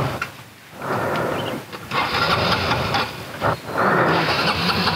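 Motorcycle engine starting: two short bursts, then it catches about four seconds in and keeps running steadily.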